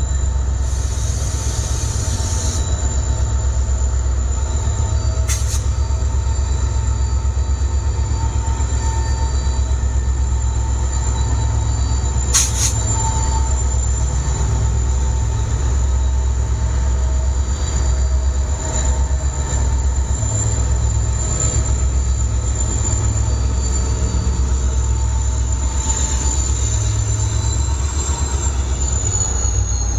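EMD two-stroke diesel locomotive engine running with a deep, steady, pulsing hum and a thin high whine over it. The whine slides down in pitch near the end. Two short sharp clicks cut in, about 5 and 12 seconds in.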